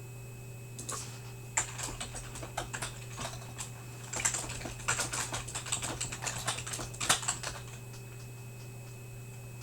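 Typing on a computer keyboard: quick irregular runs of key clicks starting about a second in and stopping a couple of seconds before the end, over a steady electrical hum.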